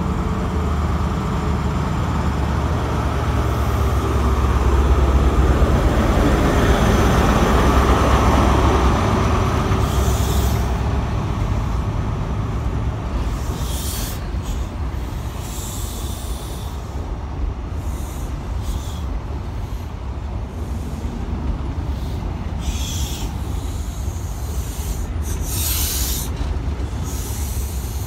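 An HST's Class 43 diesel power car drones as it pulls out, loudest a few seconds in as it passes close by. The drone then fades into the rumble of the passenger coaches rolling past, with scattered wheel clicks.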